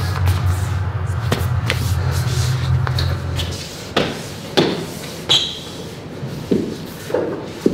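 A dancer's feet and hands striking and sliding on a hard tiled floor: a series of sharp thuds and a short squeak. Under the first three and a half seconds runs a low steady drone, which then stops.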